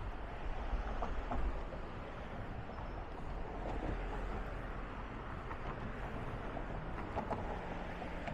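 Steady road traffic noise with a low rumble, no single event standing out.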